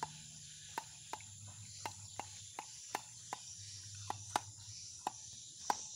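Quiet outdoor garden ambience: a steady high-pitched insect drone over a low hum, with irregular sharp clicks, two or three a second.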